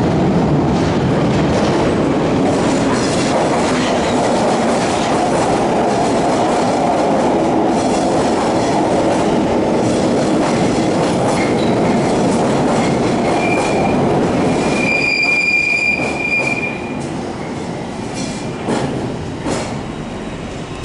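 Bakerloo line 1972 Stock tube train running into the platform from the tunnel: a loud rumble of wheels on rail that eases as it slows. A high squeal rises as it brakes to a stop about three-quarters through, followed by a few sharp clicks.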